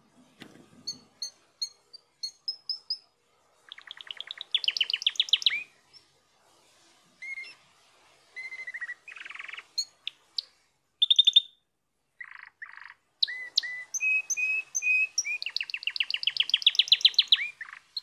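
Domestic canary singing: runs of short repeated whistled notes and fast rolling trills, ending in a long trill near the end.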